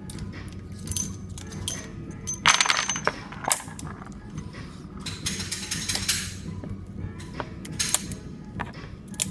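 Irregular metallic clicks and clinks of a Taurus Model 82 .38 Special revolver being handled, with two short rushing noises about two and a half and five seconds in, over a low steady hum.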